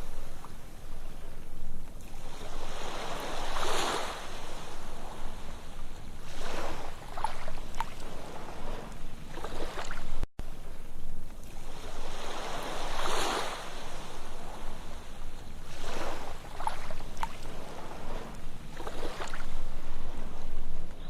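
Ocean waves breaking and washing up a sandy beach, swelling and falling back every two to three seconds. About halfway there is a brief cutout, after which the same sequence of surges repeats as the recording loops.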